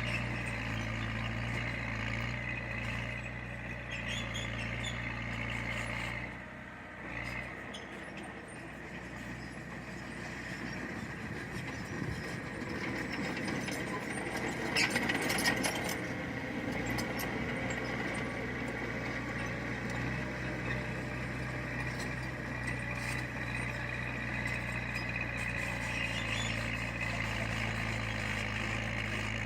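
Heavy earthmoving machine's diesel engine running steadily. It eases off briefly several seconds in, then builds back up, with a short clatter about halfway through.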